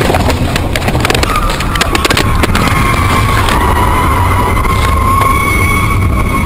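Car crashing off the road just after an impact: rattling and crunching through the first couple of seconds over a steady low rumble, with a steady high-pitched whine coming in about a second in and holding.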